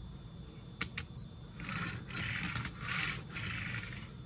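A small die-cast toy car being handled: two light clicks, then several short scraping passes about half a second each.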